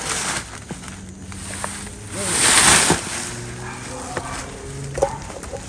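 Rustling and scuffing in dry leaf litter, with one louder rustle lasting about a second near the middle, and scattered small clicks around it.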